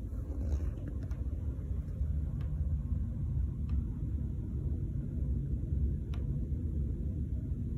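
Home heating system running with a steady low rumble, broken by a few sharp ticks at irregular intervals, the clearest about six seconds in. This is the ticking/knocking that comes from the walls and vents whenever the heating is on.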